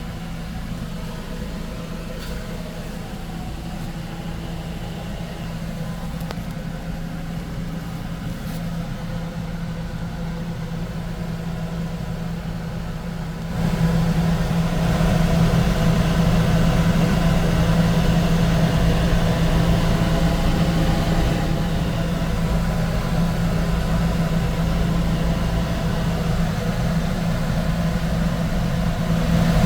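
Steady low machine hum with a droning tone, which suddenly grows louder and hissier about thirteen seconds in and then holds steady.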